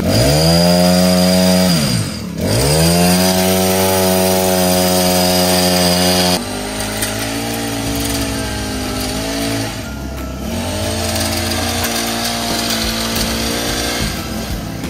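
Chainsaw engine sound started by a pull of the starter cord. Its pitch swoops down and back up twice in the first few seconds, then it runs steadily. About six seconds in it changes abruptly to a quieter, lower running sound.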